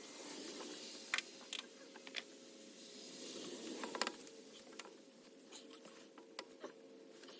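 Scattered sharp clicks and light knocks of hand tools working at the bolts of a rusted alternator on a 2015 Ford F-150, the loudest about four seconds in, over a faint steady hum.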